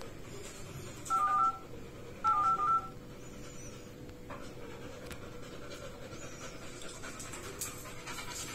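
Smartphone keypad dialing tones: a couple of short beeps about a second in, then a quicker run of beeps just after two seconds, as a number is dialled.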